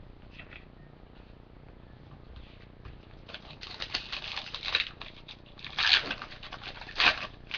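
Trading cards being handled: short bursts of rustling and sliding card stock, heaviest in the second half.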